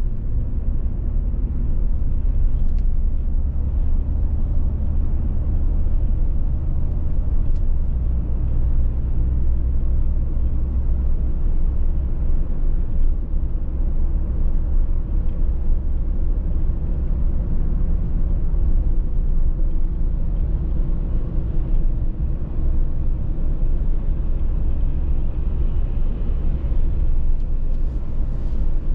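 Steady road noise heard inside a moving car: a deep drone of engine, tyres and wind at cruising speed, with no sharp events.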